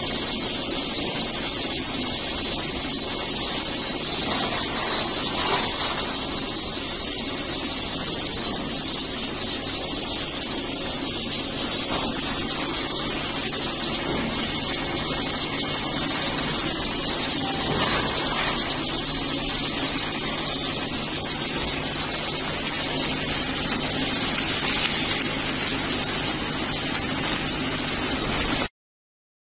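Continuous band sealer with gas flush running: a steady, loud hiss of gas blowing into the bag mouth over a low motor hum, with a couple of brief louder surges. The sound cuts off suddenly near the end.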